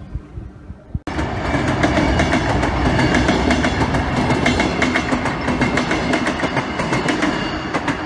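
Electric commuter train passing close by: a steady rushing rumble with rapid clicking of the wheels over the rail joints. It starts abruptly about a second in and eases off slightly near the end.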